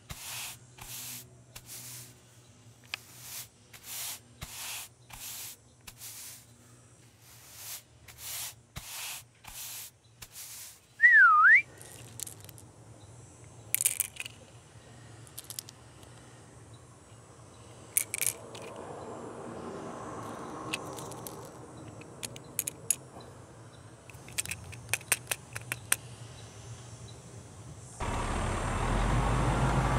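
A short, loud whistle that falls and then rises again, about a third of the way in, after a run of soft, evenly spaced swishes. Scattered small clicks follow, and near the end a steady low rumble starts as a toy garbage truck rolls across concrete.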